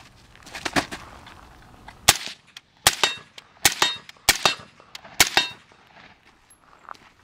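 Suppressed LMT carbine firing a string of single shots: sharp cracks, the loudest five coming between about two and five and a half seconds in, roughly one every 0.8 seconds. A faint ring trails several of the shots.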